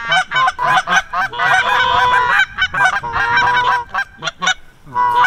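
A flock of geese honking, many overlapping calls following one another in quick succession.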